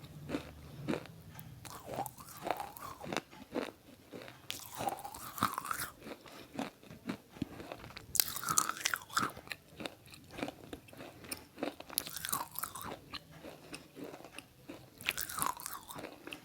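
Close-up biting and chewing: many small crunchy clicks, with a louder crunching bite about every three to four seconds.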